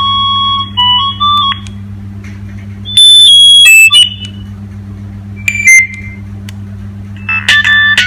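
Nokia 3530's ringtones previewing from its speaker one after another as the ringtone list is scrolled: short electronic melodies of stepped beeping notes, each cut off when the next begins. One phrase dies away about a second and a half in, a loud burst comes around three seconds, a brief one follows past the middle, and a new melody starts near the end, over a steady low hum.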